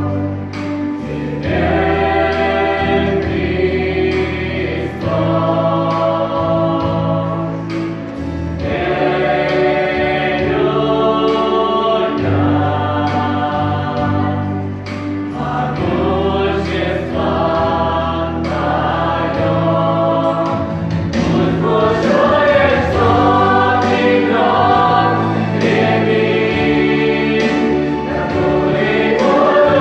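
Choir singing a Christian song in several voices, in long held phrases over a steady low accompaniment, swelling near the end.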